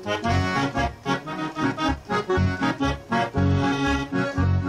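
Accordion playing an instrumental melody line over a steady low bass beat, with no singing.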